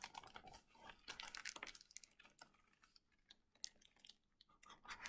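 A large picture book being lowered and its paper pages handled and turned: irregular soft rustles and small clicks, clustered near the start, a little after a second in, and again near the end.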